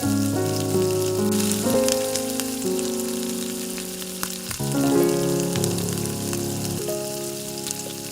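Hot oil sizzling and crackling as a rice-flour snack fries, under background music with a melody of held, changing notes.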